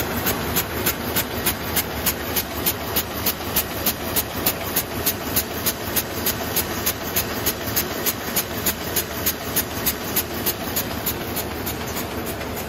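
A220 high-speed twisted-handle paper bag making machine running in production, a sharp clack repeating evenly about three times a second over its steady mechanical running noise.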